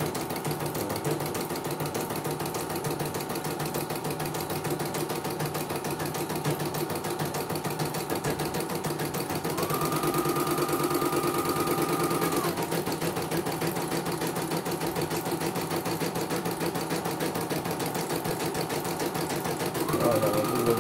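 CNY computerized embroidery machine stitching steadily, a fast even needle rhythm that is smooth after repair. About ten seconds in a higher whine rises and holds for about three seconds before dropping away, and it comes back near the end.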